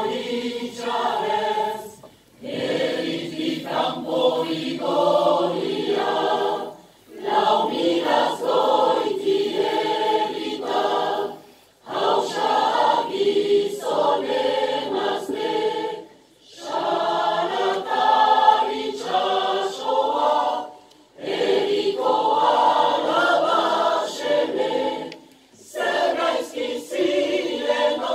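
Large mixed choir of men and women singing in Basque, led by a conductor, in phrases of about four to five seconds with short breaks for breath between them.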